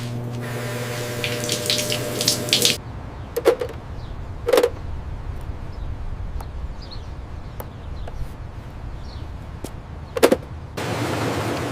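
A steady mechanical hum with a rising hiss stops abruptly. A low rumble follows, broken by three sharp knocks.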